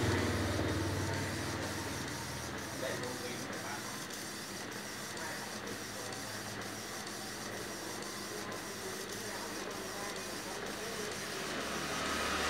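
Colour printer running steadily while it prints sheets of cards, a mechanical whir with a faint regular pulse about twice a second.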